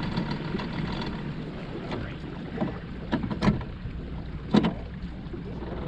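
Outboard motor on an aluminium fishing boat running steadily at trolling speed, a low hum with water and wind noise. A few short sharp knocks in the middle, two of them louder.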